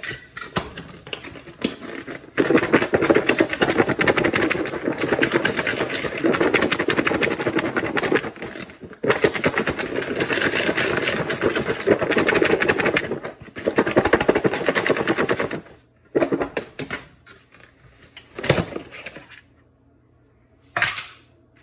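Cut bell peppers, onions and mushrooms shaken hard in a covered bowl, the pieces rattling rapidly against the lid and sides in two long spells of about six seconds each, then a few short knocks near the end.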